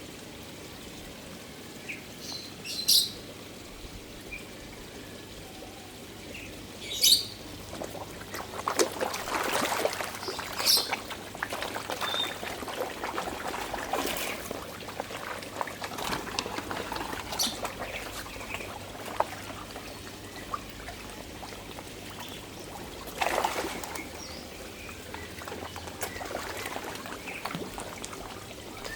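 Koi feeding at the water surface, splashing in irregular bursts. There are two short sharp splashes early on, then a busy stretch of splashing through the middle and another flurry later.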